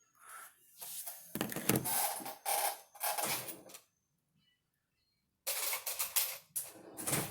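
Handling noise on a desk: objects being moved and set down, clattering and rustling in two spells of a few seconds each, with a short pause between them.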